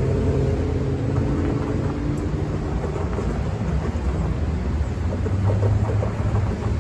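Road traffic driving past: car and pickup truck engines and tyres as a steady low rumble. A deeper engine tone swells near the end as a van and a pickup cross.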